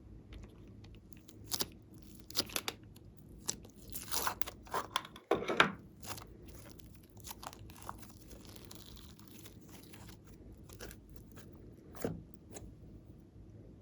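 Crinkling and crunching handling noises, a run of sharp crackles and clicks that is densest and loudest about four to six seconds in, with one more near the end.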